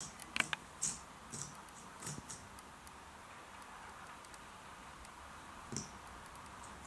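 Light clicks and taps from a cat pawing at a fidget spinner: several in the first two seconds or so and one more near the end, over a faint steady hiss.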